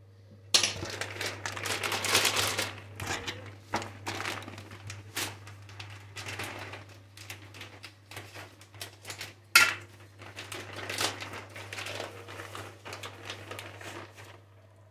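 Plastic bag of shredded cheese crinkling as it is handled and opened, in irregular rustling bursts, with one sharp, louder crackle about two-thirds of the way through.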